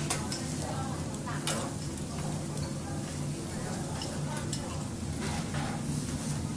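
Food sizzling on a teppanyaki griddle, a steady frying hiss with several sharp clicks and scrapes scattered through it.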